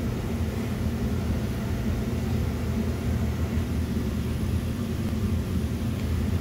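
Palmgren 6-inch variable-speed bench buffer running steadily at about 1800 rpm, its cotton buffing wheel spinning, with a knife handle held against the wheel for polishing.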